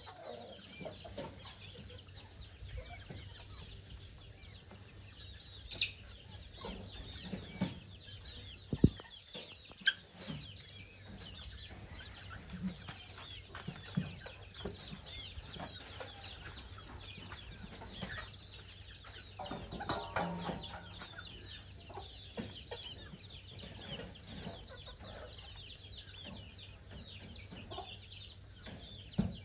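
Many chicks peeping continuously and high, with a mother hen clucking low now and then and a louder call about twenty seconds in. A couple of sharp knocks stand out around six and nine seconds.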